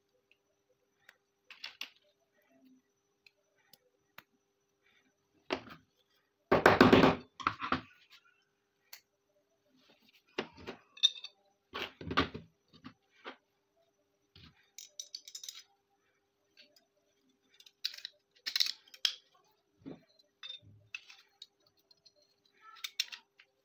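Small steel parts of a 30 bore pistol clicking and clinking as they are handled, fitted into the frame and set down on the mat, in scattered short knocks. The loudest clatter comes about seven seconds in.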